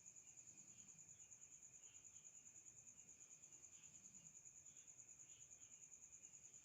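Faint, steady high-pitched trill of a cricket, pulsing evenly and without a break, with softer, lower chirps coming and going behind it.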